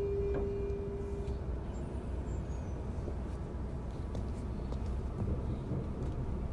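Hitachi IGBT VVVF inverter of a Sotetsu 9000 series electric train whining at one steady pitch, then cutting off about a second and a half in. After that comes the train's steady running rumble of wheels on rail, with a few light clicks.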